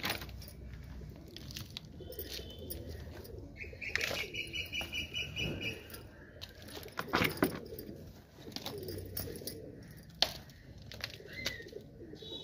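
Potting soil scooped by hand and dropped into small plastic flower pots, with soft scraping and a few short knocks, sharpest about seven and ten seconds in. Birds call in the background, with one steady whistle-like call about four seconds in lasting some two seconds.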